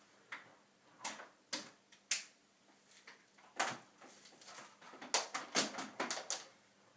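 About a dozen irregular clicks and knocks, bunched closer together in the second half, from an upright vacuum cleaner being handled before it is switched on.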